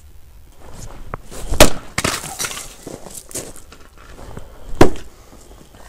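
Workzone splitting axe with a hickory handle striking and splitting logs on a chopping block: two sharp blows about three seconds apart, the first followed by about a second of rough clattering noise.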